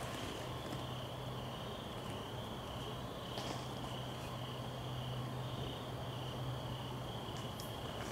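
Night chorus of crickets: a steady, high, slightly pulsing trill that carries on throughout, over a low steady hum, with a couple of faint ticks.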